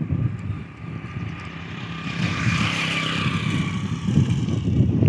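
Engine running steadily with a low rumble, joined by a rushing hiss that swells and fades about two to three and a half seconds in.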